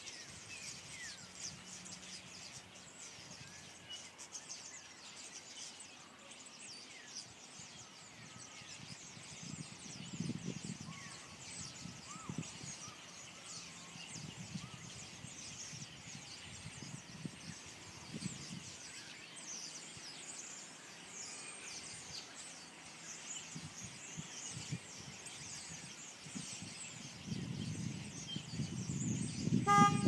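A large flock of small birds perched on power lines, chirping and chattering in a dense, continuous mass of high calls. Low rumbles come now and then and grow louder near the end.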